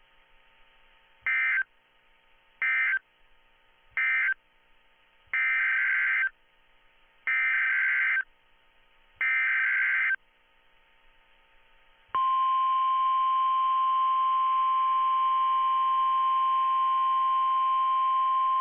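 NOAA Weather Radio Emergency Alert System signals come through off the radio. First there are three short SAME digital data bursts, then three longer ones. About twelve seconds in, the steady 1050 Hz warning alarm tone starts. The short bursts are the end-of-message code of the previous alert, the longer ones are the header of a new alert, and the tone is the attention signal ahead of the new voice message.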